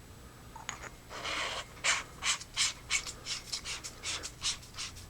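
Handling of the flashlight's parts and battery: a brief hiss, then a quick run of short, sharp scrapes and rustles, about four a second, trailing off near the end.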